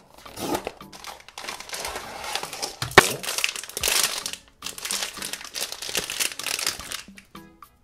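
Foil blind-box bag crinkling and tearing as it is opened by hand: a dense crackle, with one sharp snap about three seconds in.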